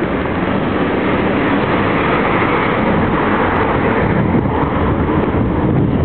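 Steady rushing noise of wind on the microphone of a camera riding on a moving bicycle, mixed with road noise.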